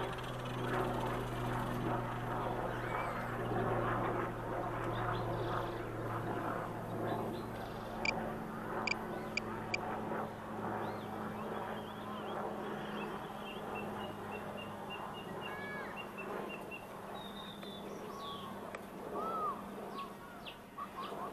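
Micro RC helicopter's electric motor and three-blade rotor whirring on the landing pad and slowly dying away. A few sharp clicks come about eight to ten seconds in, and birds chirp and call in the second half.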